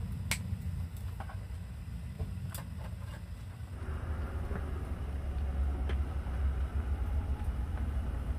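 Spicy stew boiling hard in a shallow pan, bubbling steadily from about four seconds in, over a steady low rumble. A few light clicks come in the first three seconds.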